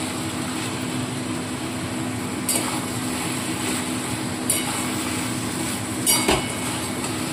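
A metal spatula stirring a thick ash gourd and hilsa-head mixture in a metal kadai. It knocks and clinks against the pan a few times, over a steady low hum.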